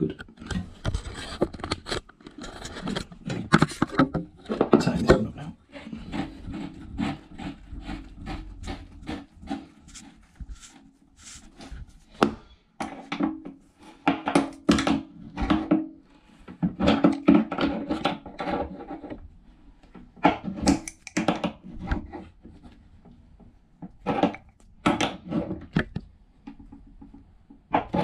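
An adjustable spanner working on the bolts and the inlet pipe fitting under a toilet cistern: a busy run of metal clicks, knocks, scrapes and rubbing as the fittings are tightened.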